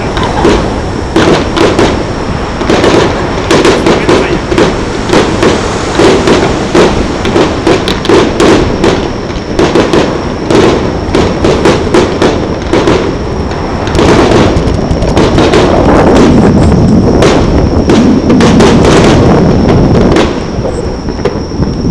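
Fireworks going off in quick succession, many sharp bangs close together and very loud. From about two-thirds of the way through, the bangs give way to a steady rushing noise.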